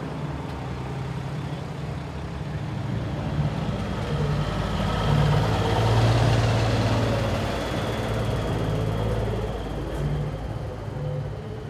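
Semi truck diesel engines running as tractor-trailers pull slowly past. One rig passes close, getting louder to a peak about halfway through and then fading.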